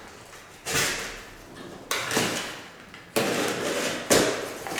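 A cardboard carton and its plastic packing being handled: four sudden scraping, sliding knocks, each trailing off briefly.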